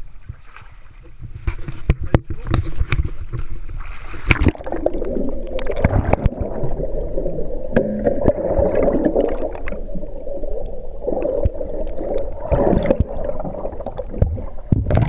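Water heard through a camera held under the surface: muffled rushing and gurgling with scattered clicks and knocks. A sharp knock about four seconds in marks the start of the thick underwater rush.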